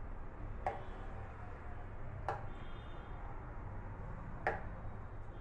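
A metal spoon stirring paneer pieces through thick tomato gravy in a metal pan, clinking sharply against the pan three times, over a steady low hum.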